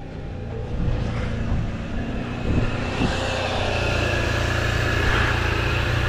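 Toyota Sienna's 3.5-litre V6 engine running steadily, just started after a crank-no-start. The mechanic suspects a bad ignition coil or a bad coil ground.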